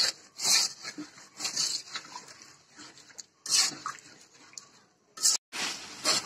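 Metal spatula stirring and scraping chicken pieces through a thick sauce in a metal wok, in irregular strokes, as the country chicken is braised in its spices. There is one sharp knock about five seconds in.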